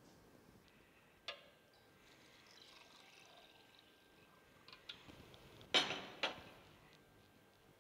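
Water poured from a clear plastic jug into a stemless drinking glass: a faint trickle after a click about a second in. Near the end come two sharp knocks half a second apart, the loudest sounds, as hard things are set down on a table.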